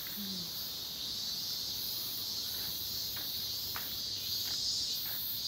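Steady high-pitched chorus of summer insects, with a pulsing buzz higher up, over a few faint footsteps on gravel.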